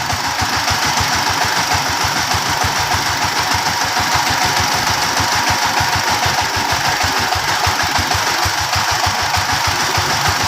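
Engine running steadily with an even, rapid low chugging of firing pulses, several a second, under a steady hiss.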